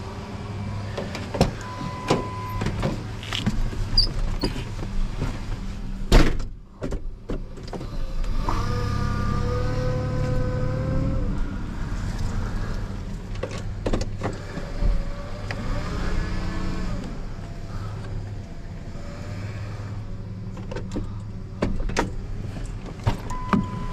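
Car sounds heard from the driver's seat: a short chime beep, a door slamming shut about six seconds in, then the car running with a low steady hum. An electric whine rises slightly in pitch for about three seconds, and a shorter whine comes later.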